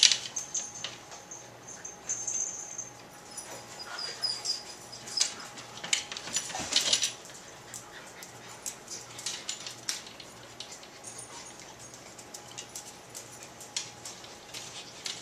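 A puppy whimpering in thin, high cries, amid light clicks and knocks as the plastic dog-door flap swings against its frame.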